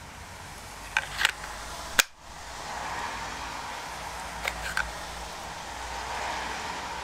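A knife snapping in and out of a 2.4 mm Kydex sheath: sharp plastic clicks as the sheath's retention catches and releases the blade. A pair of clicks comes about a second in, a single sharper click at about two seconds, and another pair at about four and a half seconds.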